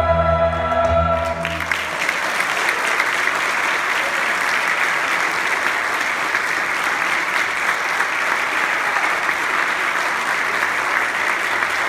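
A children's choir with piano accompaniment holds its final chord, which cuts off about a second and a half in, and the audience breaks into steady applause.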